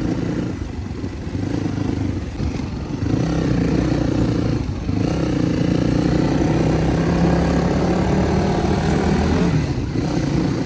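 Motorcycle engine running while riding. Its note dips briefly about two seconds in and again near five seconds, then holds steady.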